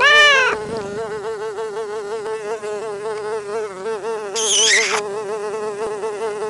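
A steady insect-like buzzing drone, wavering regularly in pitch. A short cry rises and falls at the very start, and a high wavering squeal comes about four and a half seconds in.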